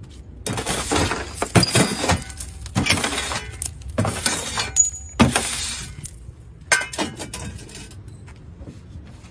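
A shovel striking a car windscreen again and again, the glass cracking and crunching with small pieces clinking. The blows come in quick succession for about six seconds, then one more near seven seconds in.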